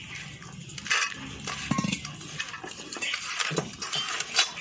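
A bare hand mixing wet prawns, spice paste and flour in a steel bowl: irregular wet squelches and smacks, with light clinks against the metal.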